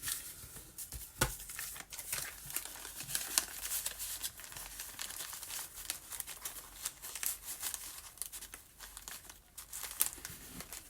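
Coffee-dyed ledger paper crinkling and rustling as it is handled and folded by hand, with irregular sharp crackles as it is creased.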